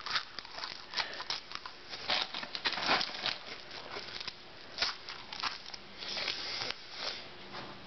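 Close-up chewing of a big mouthful of crunchy Trix cereal: irregular crunching and crackling, with a few louder crunches.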